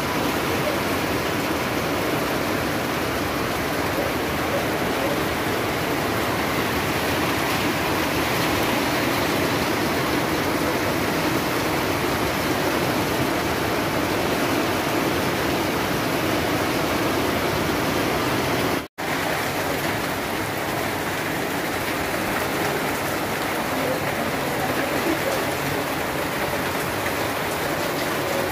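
Heavy rain pouring down steadily, a dense even hiss. It cuts out for an instant about two-thirds of the way through, then carries on.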